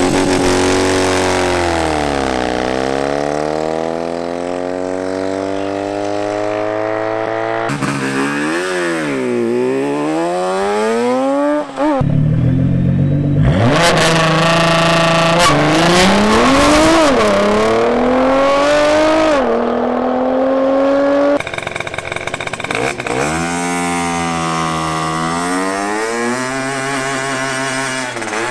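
Motorcycle and car engines accelerating hard in a series of short cuts, revs climbing and dropping back with each gear change. About halfway through, a Nissan GT-R launches from the line.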